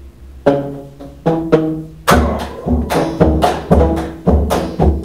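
Drums and percussion playing. A few separate ringing drum strokes come first, then about two seconds in a faster, steady rhythm with deep bass beats comes in, about three to four strokes a second.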